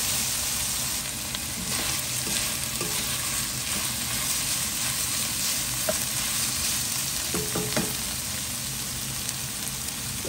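Minced pork and diced carrots sizzling steadily in a nonstick wok as a spatula stirs and scrapes through them, with a few light spatula clicks against the pan.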